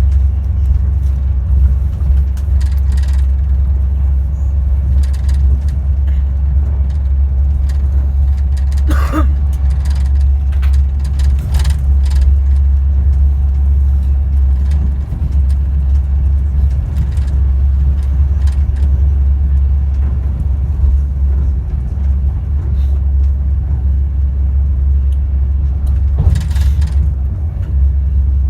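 Class 390 Pendolino electric train heard from inside the passenger saloon while running, with a steady low rumble from the running gear and traction motors under the floor. Scattered short clicks and rattles come through, with a sharper one about nine seconds in.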